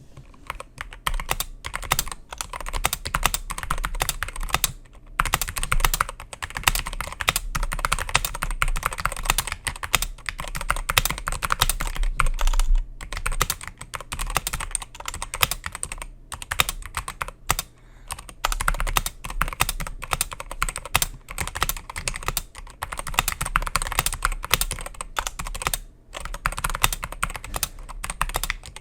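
Typing on a SteelSeries Apex Pro TKL mechanical keyboard with OmniPoint adjustable switches, fitted with HyperX Pudding keycaps: a dense, continuous run of keystrokes with short breaks about five, sixteen and twenty-six seconds in.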